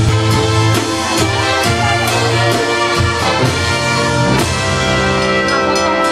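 Live brass band music: trumpets and trombones over drum hits about twice a second, giving way to long held brass chords about four and a half seconds in.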